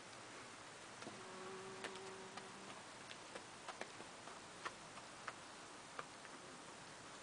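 Icelandic horse's hooves striking frozen, frosty ground at a walk: faint, irregular sharp clicks. A faint low hum runs for under two seconds about a second in.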